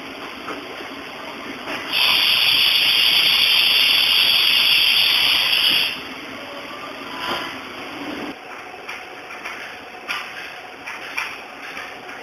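Machine-shop sound around a Haas VF-2 CNC mill: a loud, steady hiss for about four seconds, then a low hum cuts off about eight seconds in, followed by scattered light clicks.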